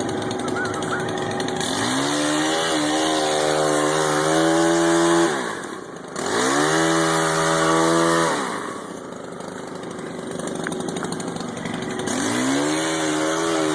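Chainsaw idling, then revved up to full speed three times, each time holding high for a few seconds before dropping back to idle.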